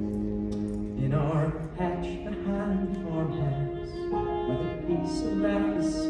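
Music from a stage musical's opening number: a melody of held notes that changes about a second in and moves on note by note.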